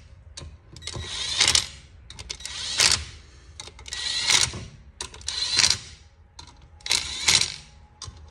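Cordless driver spinning bolts into a brake rotor and hub in five short bursts, about one every second and a half, each ending in a rapid run of clicks as it bottoms out. The driver is turned all the way down so the bolts are only snugged, not stripped.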